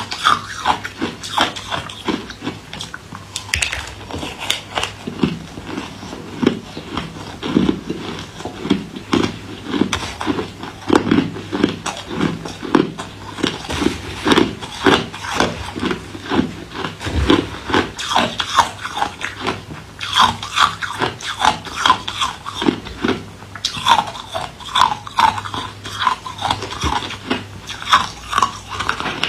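Ice being bitten and chewed by a person, a steady run of crunches several times a second.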